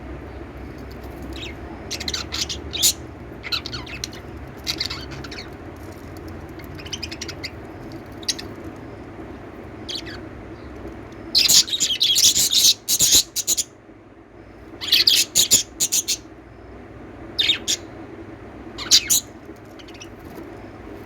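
Small pet parrots chirping in short, scattered bursts, with a dense, loud flurry of chirps about halfway through, over a steady low hum.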